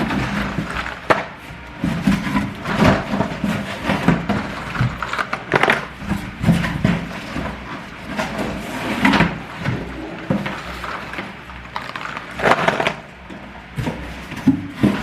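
Cardboard packaging and boxes being handled: irregular knocks, taps and scrapes at an uneven pace.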